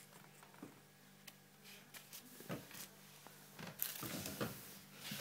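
Faint handling noises: scattered light clicks and rustles, a little busier near the end, over a low steady hum.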